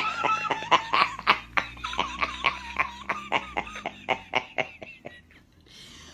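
Small dog whining in a string of quick, high yelping pulses, about five a second, fading out after about five seconds.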